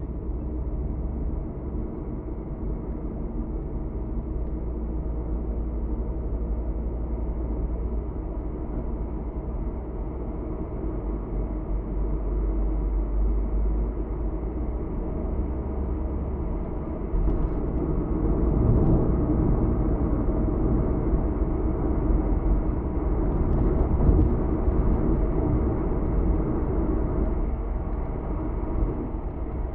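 A car driving, heard from inside the cabin: a steady low rumble of engine and road noise that gets louder about two-thirds of the way through.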